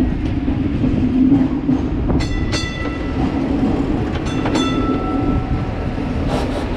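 Hong Kong tram running along street track with a steady low rumble, its driver's gong rung in quick double strokes ("ding-ding") about two seconds in, again about four and a half seconds in, and near the end.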